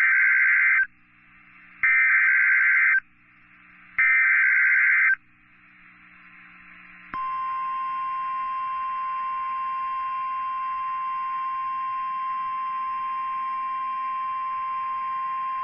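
Emergency Alert System SAME data header: three shrill bursts of two-tone digital data about two seconds apart, which mark the start of a new warning. After a pause of hiss comes the steady 1050 Hz NOAA Weather Radio warning alarm tone, held for about nine seconds.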